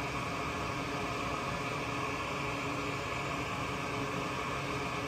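Steady whir of a fume-extraction vent fan running while a circuit board is being desoldered.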